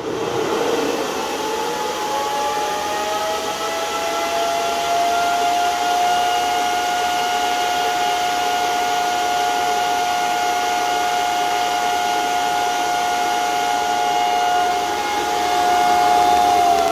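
Cooling fans of a Bitmain Antminer L3+ crypto miner running at full speed, the loudest it gets: a loud, steady whir with several whining tones. The tones rise in pitch over the first two seconds as the fans speed up, then hold steady.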